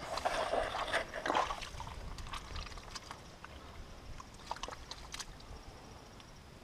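Wet mud squelching and sloshing as gloved hands dig and scoop through a waterlogged mudbank, busiest in the first couple of seconds, then fainter scattered wet clicks and pops.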